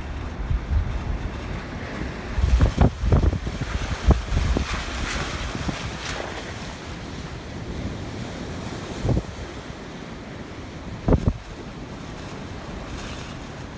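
Storm-force wind gusting and buffeting the microphone, with several sharp low thumps, over the steady rush of rough surf.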